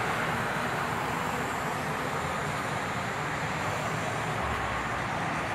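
Steady roar of road traffic, even and unbroken, with no single vehicle standing out.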